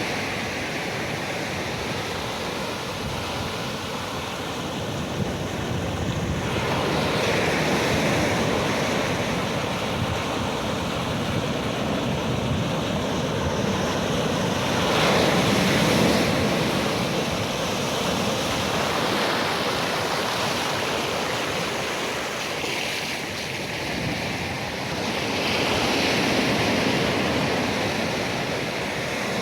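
Ocean waves breaking and washing onto the shore in a continuous rush, swelling louder three times: around seven, fifteen and twenty-six seconds in.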